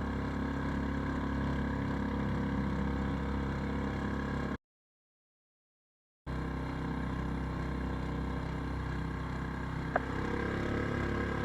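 A motorboat engine running steadily under way, a constant drone with water noise. About four and a half seconds in, the sound drops out completely for about a second and a half, then resumes unchanged.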